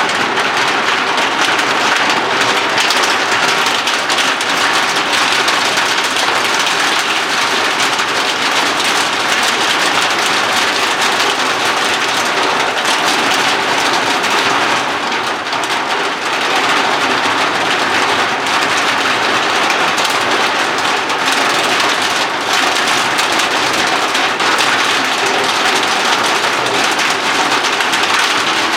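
Heavy rain pelting down steadily, a dense unbroken patter on a hard surface.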